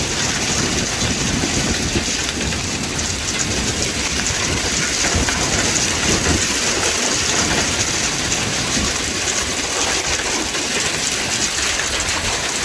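Heavy monsoon thunderstorm downpour: a dense, steady patter of rain striking surfaces, with wind rumbling underneath.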